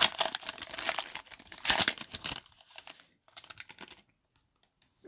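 Foil trading-card pack wrapper being torn open and crinkled by hand. The loud crackling lasts about two and a half seconds and peaks twice, then gives way to a second of fainter rustling.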